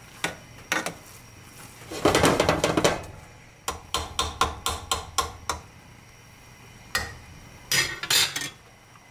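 Metal cookware and utensils knocking and clattering against a cooking pot: a few single knocks, a loud second-long rattle about two seconds in, a run of quick taps about four a second in the middle, and another clatter near the end.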